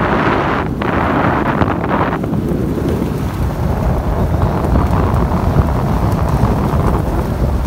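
Wind buffeting a phone's microphone from a moving car, a loud steady rush with deep rumble under it. A brighter hiss in it eases off about two seconds in.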